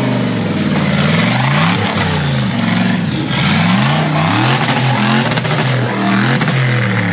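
Off-road 4x4 race vehicle's engine revving hard and dropping back over and over, its pitch rising and falling about once a second.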